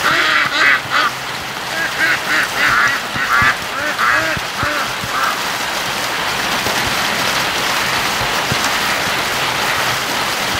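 Domestic ducks quacking in a quick run of short calls over steady heavy rain. The calls stop about five seconds in, leaving only the rain.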